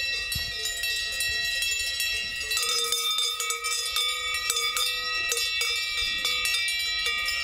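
Cowbells on grazing cattle clanking and ringing irregularly, several bells at different pitches.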